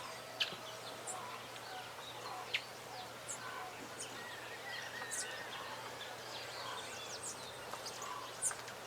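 Faint outdoor wildlife ambience with scattered short, high chirps and brief calls over a low steady hiss.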